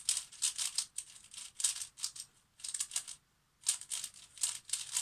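Plastic speedcube being turned by hand: rapid clicking and clacking of the layers in quick runs of turns, with a brief pause about three seconds in.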